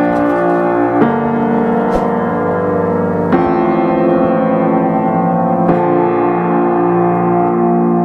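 Background music: piano playing held chords that change every second or two, with no singing.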